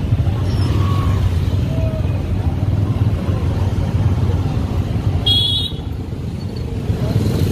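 Motor scooter traffic moving slowly, a steady low rumble of small engines, with a short high-pitched beep about five seconds in.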